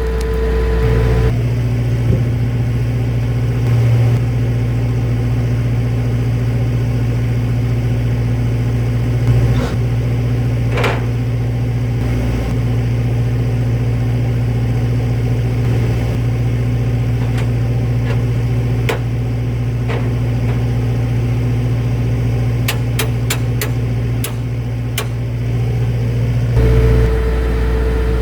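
Circular sawmill running steadily while sawing a spruce log into cants. A deep steady hum sets in about a second in and drops away near the end, with scattered sharp ticks along the way.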